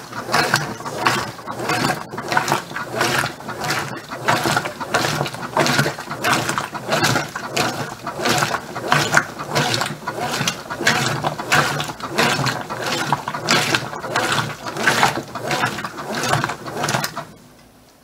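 Brastemp BWK15 top-load washing machine agitating: the agitator swings back and forth in rhythmic strokes, about two a second, with the motor and gearing working and suds and water sloshing, then stops about a second before the end. The strokes are wide and strong on the heavy-soil setting because the drum holds less than a kilo of clothes.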